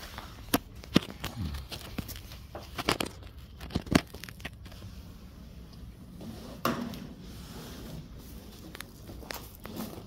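Handling noise from movers working a pad-wrapped, rope-tied refrigerator: scattered sharp knocks and clicks with rustling and crinkling, and a longer scrape or rustle near the end.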